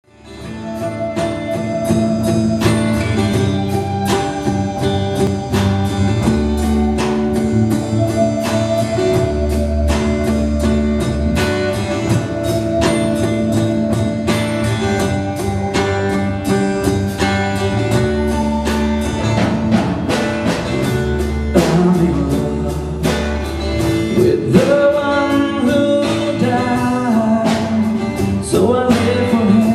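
A live rock-style worship band playing: drum kit keeping a steady beat under bass and guitar, with a lead line that bends and slides in pitch in the last third.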